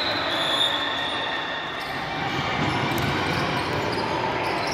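Basketball game in a large, echoing sports hall: a steady din of play with a ball bouncing on the court.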